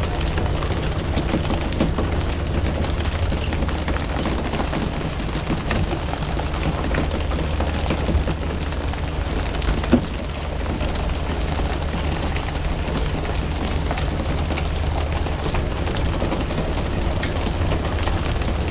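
Fishing boat's engine running with a steady low drone under a constant hiss of water, with one sharp knock about ten seconds in.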